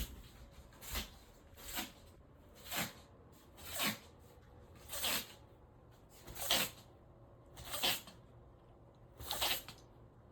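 A pet sneezing over and over in a spell, about eight sharp sneezes roughly a second or so apart, as if something is stuck in its nose.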